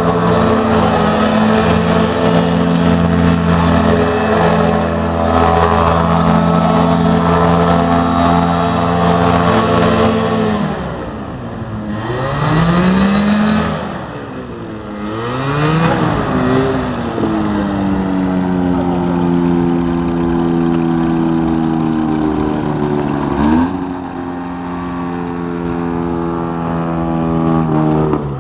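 Airboat's engine and air propeller running hard at a steady high speed for about ten seconds, then dropping and revving up and down several times as the boat swings through tight spinning turns, before holding steady again; the engine note falls away near the end.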